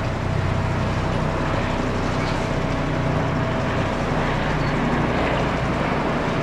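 Airbus H135 P3 helicopter with twin Pratt & Whitney PW206B3 turboshaft engines flying past overhead: a loud, steady drone of rotor and turbines. A thin whine in it fades about two thirds of the way through.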